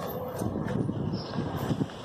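Wind buffeting the microphone, an uneven low rumble and flutter over outdoor background noise.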